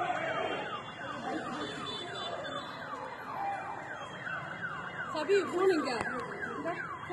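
An electronic siren sounding a fast, repeating falling wail, each sweep dropping in pitch, about two and a half sweeps a second.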